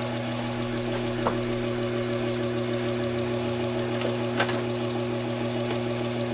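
Taig micro lathe running with a steady motor hum as the spindle turns a steel bar. A faint tick comes about a second in and another past four seconds.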